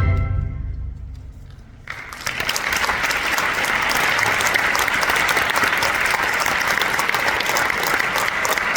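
The ensemble's final chord rings out and fades away over about two seconds, then an audience breaks into steady applause that carries on to the end.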